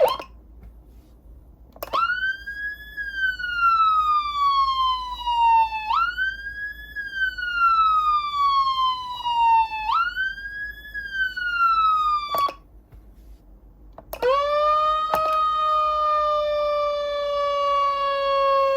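Whelen Cencom Sapphire electronic siren amplifier sounding programmed siren tones. A tone sweeps up quickly and falls slowly, three times at about four-second intervals, then stops abruptly. After a short pause a lower tone winds up quickly and then drifts slowly down.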